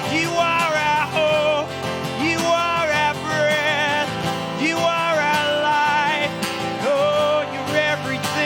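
Worship band music: steady acoustic-guitar-led chords under a long, held melody line with vibrato, sung in a slow worship song.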